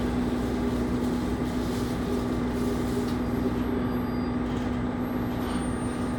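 Kiha 25 diesel railcar heard from inside the cabin: a steady engine drone with a constant low hum and rumble underneath.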